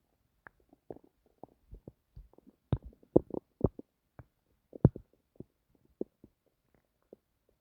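Stomach rumbling: a run of short, irregular gurgles and pops, thickest and loudest in the middle, with quiet gaps between them.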